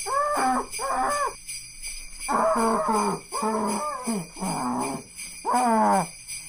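Sleigh bells jingling steadily over muffled human screaming: a string of short, wailing cries, most sliding down in pitch at their ends, with a pause of about a second near the middle.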